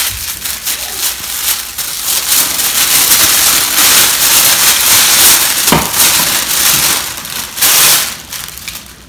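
Tissue paper rustling and crinkling as it is pulled out of a paper gift bag.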